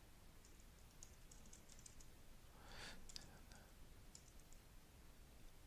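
Faint computer keyboard typing: scattered soft keystrokes entering a line of text.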